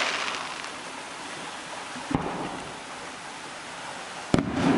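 Distant fireworks bursting: a bang about two seconds in and a sharper, louder bang near the end. A steady hiss of falling rain runs underneath.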